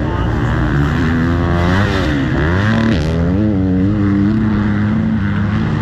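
Motocross bike engines revving on the track, several at once, their pitch rising and falling with the throttle, then holding a steadier note.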